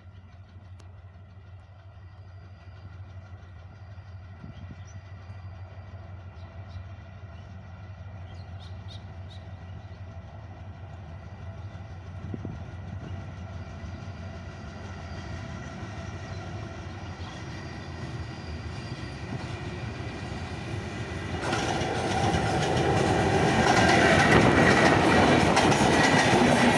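Bangladesh Railway intercity express running through a station on broad-gauge track. Its diesel locomotive grows steadily louder on the approach, then about twenty seconds in it passes close by and the sound jumps up. The coaches follow with their wheels clattering over the rail joints.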